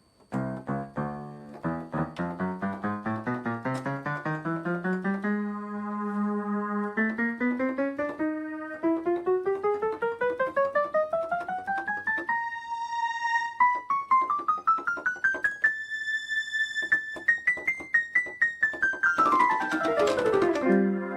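Bontempi PM 65 electronic keyboard played one note at a time, climbing steadily from the lowest keys to the highest, with a few notes held, then a quick run back down near the end: the keys are being tested in turn.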